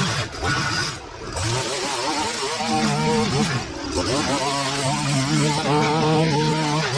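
Stihl two-stroke string trimmer running and cutting weeds, revving up and down, easing off briefly about a second in, then holding steady at high revs.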